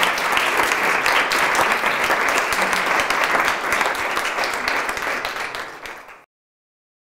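Audience applauding, easing off slightly and cut off abruptly about six seconds in.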